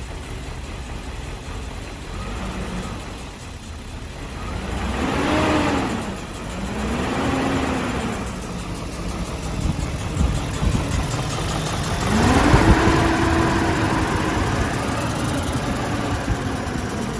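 BMW 740i's 4.4-litre V8 running on its first cold start after a timing chain replacement, revved up and let back down three times: two short blips, then a longer rev held for a few seconds near the end, with idle between.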